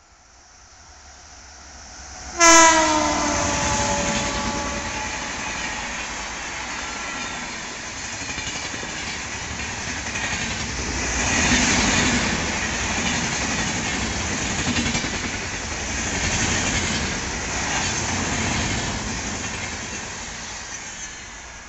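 Indian Railways passenger train approaching and passing at speed. A single loud horn blast starts about two and a half seconds in, its pitch dropping slightly as it fades. Then the coaches roll past with a steady rumble and rail clatter that swells and eases, fading near the end.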